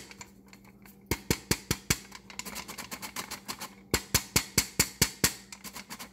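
Hand-operated flour sifter working powdered sugar through its mesh: quick mechanical clicks, about five a second, in runs with short pauses.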